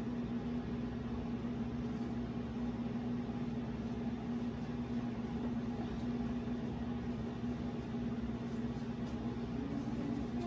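Steady hum of a kitchen appliance fan motor running, with one constant tone and a low rumble beneath it.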